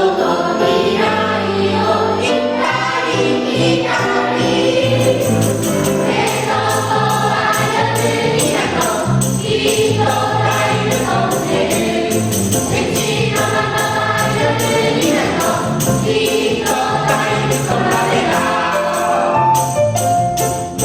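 Children's choir singing a children's song with musical accompaniment, a jingling percussion beat ticking evenly throughout.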